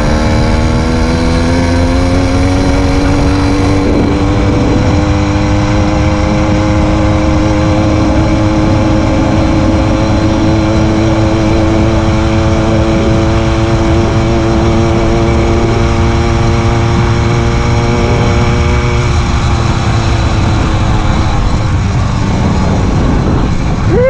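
Small motorized-bicycle engine running under load, its pitch climbing slowly and steadily as the bike gains speed, over a rough rumbling noise. Near the end the engine tone fades, then a quick rev rises and falls.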